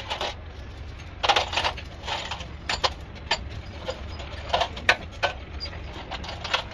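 Irregular sharp clicks and knocks of hand tools and metal parts being handled, over a low steady hum.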